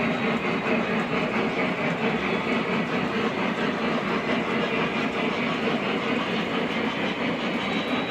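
O gauge model trains running steadily on a layout, their wheels rolling and clattering on the three-rail track.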